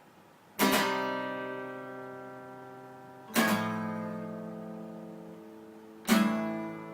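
Acoustic guitar: three chords strummed about three seconds apart, each left to ring and slowly fade.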